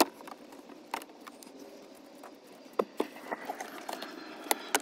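Hands working loose the plastic dash trim and the rubber door weatherstrip of a Ram 2500: rustling and rubbing with a few sharp clicks, the rustling growing fuller in the second half.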